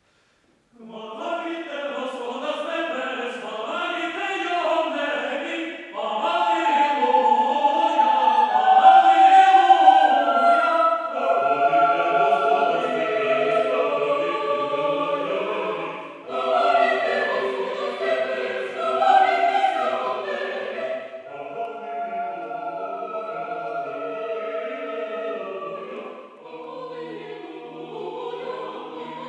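Mixed chamber choir singing a cappella in several parts, in phrases that swell and ease off. It comes in about a second in, and lower voices join about eleven seconds in.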